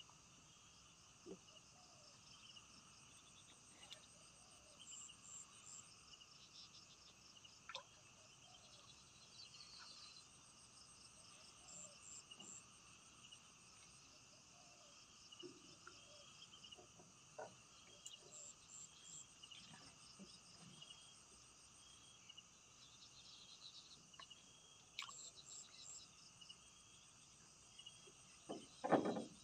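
Faint chorus of crickets and other insects: steady high trilling with a repeating high pulsed chirp every few seconds, dotted with soft clicks. A brief louder knocking comes near the end.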